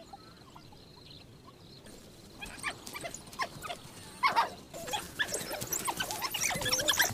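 African wild dogs twittering and squealing in a rapid jumble of short, high calls. The calls start about two and a half seconds in and grow busier toward the end.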